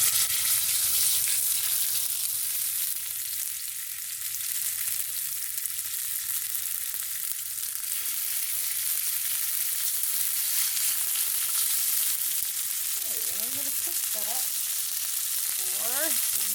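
Boneless skin-on chicken thighs searing in hot olive oil in a frying pan on medium-high heat, sizzling steadily just after being laid in.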